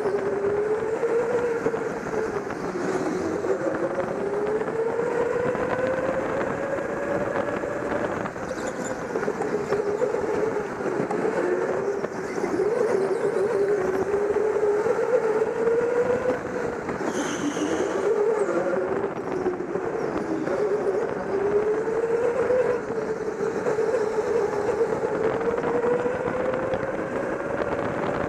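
Go-kart motor heard from on board the kart, its pitch rising and falling over and over as the kart speeds up on the straights and slows into the corners. A brief high-pitched sound comes about two-thirds of the way through.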